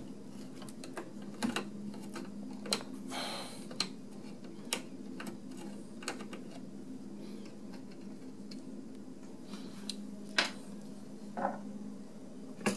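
Long screwdriver working a clamp-arm screw out of a Seeburg Selectomatic 100 jukebox mechanism: irregular metallic clicks and ticks, a second or more apart, with a brief scrape about three seconds in. A steady low hum runs underneath.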